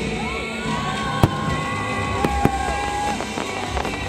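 Fireworks display: shells bursting with sharp bangs, one about a second in and two close together around two and a half seconds, over a steady rumble of further bursts. Long high held tones sound through the middle.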